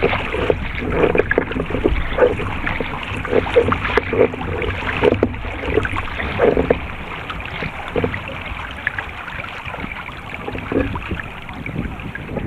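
Wind buffeting the microphone over choppy water slapping and splashing against a paddled Epic V8 surfski's hull, with irregular splashes from the paddle strokes. The splashing thins out and gets quieter over the last few seconds as the boat slows.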